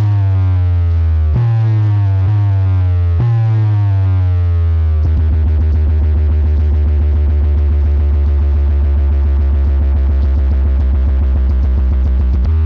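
Loud electronic DJ music with heavy bass: several falling synth sweeps, then about five seconds in a continuous distorted bass line under a fast pulsing rhythm.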